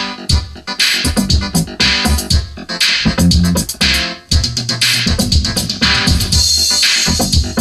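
Late-1980s R&B dance record playing from a 12-inch vinyl single: a passage without singing, over a steady drum-machine beat with synthesizer.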